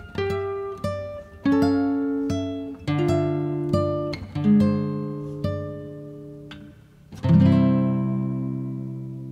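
Background music: a guitar playing a run of single plucked notes, then a full chord about seven seconds in that rings out and slowly fades.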